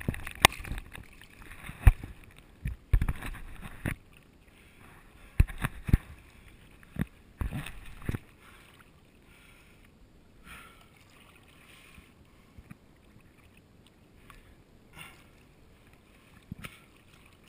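Surfboard being paddled through ocean water: hands stroking and splashing close to the board, with sharp irregular splashes through the first eight seconds. After that the water goes quieter, with only a few small splashes.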